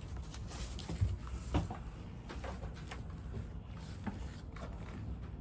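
Scattered light clicks and knocks of a keyboard's USB cable being handled and plugged in, over a low steady hum.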